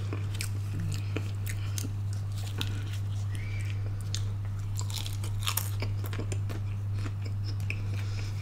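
Close-up chewing and crunching of crispy fried fast food: irregular crisp crunches and mouth clicks, over a steady low hum.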